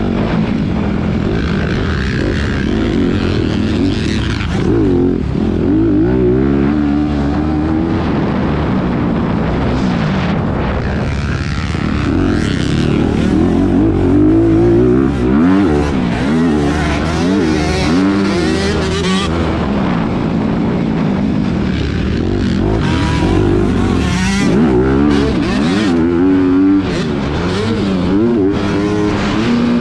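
Motocross bike engine ridden hard on a dirt track, revving up and dropping back over and over as the throttle is worked, its pitch climbing and falling throughout, heard close up from a camera on the bike.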